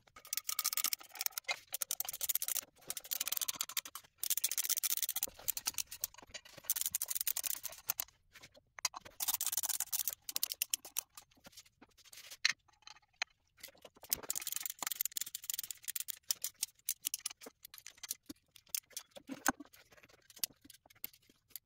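Hand ratchet clicking in quick bursts with short pauses, as bolts are run in one after another.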